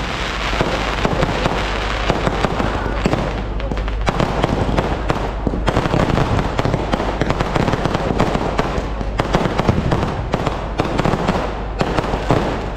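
Aerial fireworks display: a dense, unbroken barrage of bangs and crackles as many shells and crackling effects go off in quick succession.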